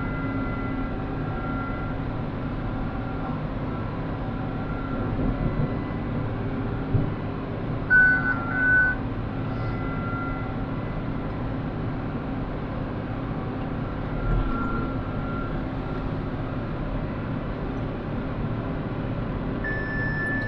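John Deere tractor engine running steadily under load while pulling a Vermeer round baler through the windrow, with two short electronic beeps about eight seconds in.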